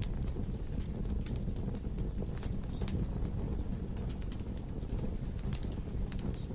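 Wood logs burning in a fireplace: a steady low rumble of the flames with irregular sharp crackles and pops scattered throughout.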